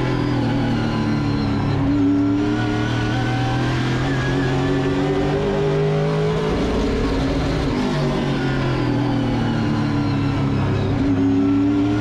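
Pro late model race car's V8 engine at racing speed, its pitch climbing and then falling off, twice over, as the car powers down the straights and lifts for the turns.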